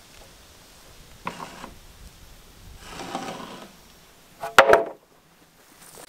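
Long wooden boards knocking and scraping against each other as they are handled, ending with a loud sharp double wooden clack a little over four and a half seconds in.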